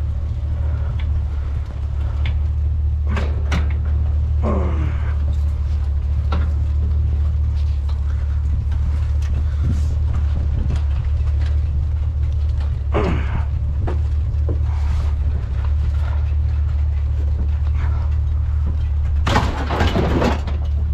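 A steady low rumble throughout, under scattered knocks and clatters of scrap being handled, with a louder crash near the end.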